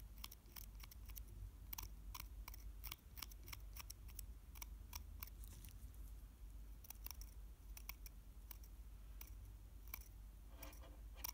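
Craft knife blade scraping at the eye opening of a 3D-printed resin doll head, worked with the back of the blade: a faint run of quick, irregular scratchy ticks, thinning out in the second half.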